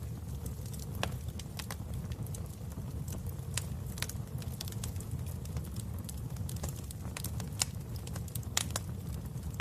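Wood fire burning in a fireplace: a steady low rumble of flames with irregular sharp crackles and pops, a few louder ones around the middle and near the end.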